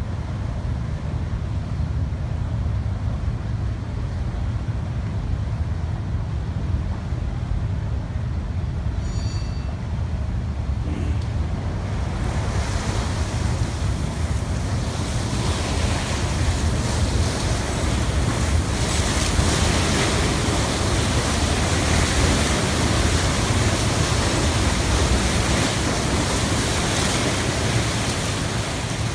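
Lake water rushing and churning along the hull of a paddle steamer underway, over a steady low rumble from the moving ship. The rush of water grows louder about twelve seconds in.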